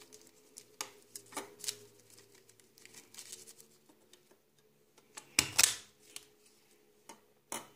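Small handheld stapler pressed on tissue-paper cutouts, with light clicks and paper rustling. A louder clack comes about five and a half seconds in and another near the end.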